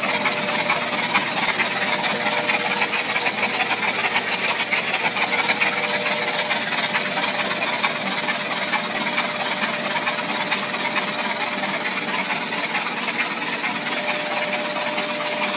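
Freshly rebuilt 427 big-block V8 being turned over at about 300 RPM by an electric run-in machine, not firing: a steady, rapid mechanical clatter from the exposed valvetrain, rockers and springs, with a faint steady hum underneath. This is a pre-start check, listened over for any strange sounds of assembly faults.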